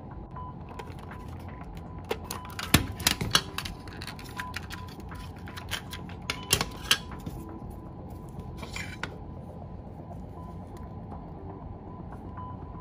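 Hard plastic clicks and knocks of a Soviet reloadable Super 8 film cartridge being handled and pulled apart, in two clusters, then a short scrape near the end.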